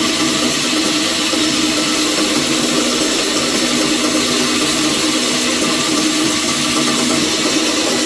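Bandsaw running steadily, its blade cutting through a wooden board with an even hum and no break.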